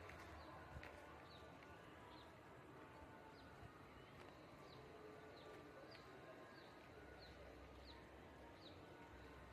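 Faint, quiet background with a bird's short, high chirp that slides downward, repeated over and over about once every half second to second.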